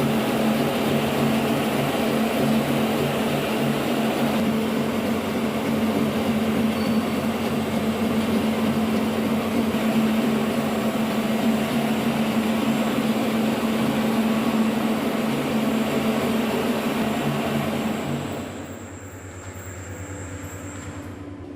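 Noodle-making machine running with a loud, steady mechanical noise and hum; about 18 seconds in it drops to a much quieter hum.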